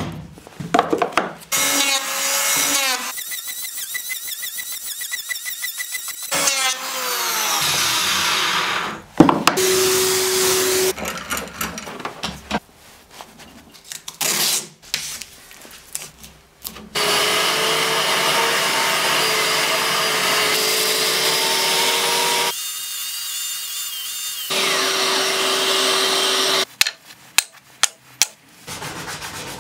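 Woodworking power tools run one after another. A motor spins up with a rising whine, runs steadily and winds down with a falling whine, then further steady runs follow with short gaps between them. A few sharp clicks come near the end.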